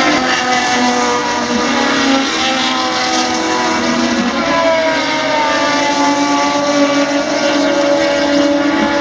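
Several Top Race touring-car engines running on the circuit at once, out of sight. Their pitches slide slowly up and down as the cars speed up and slow down.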